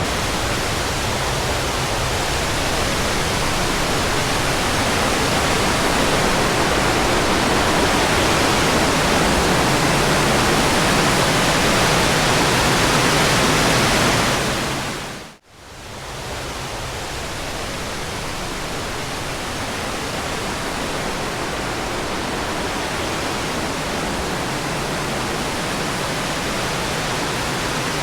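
Creek waterfall rushing in a loud, steady roar, running high after a couple of days of rain. The sound fades out to silence about halfway through and fades straight back in.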